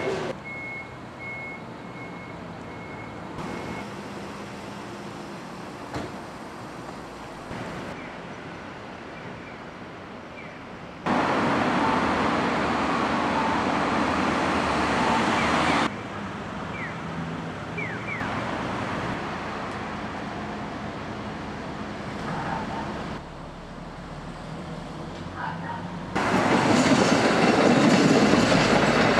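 Outdoor street ambience with traffic noise, louder for about five seconds in the middle. About three seconds from the end a JR 105 series electric commuter train starts passing close by with a steady rumble.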